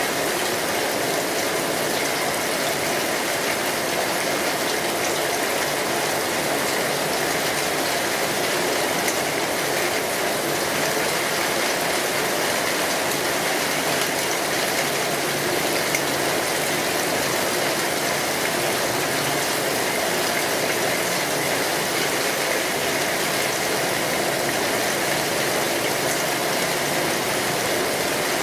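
Steady rain falling on a street, an even hiss and patter that holds at the same level throughout.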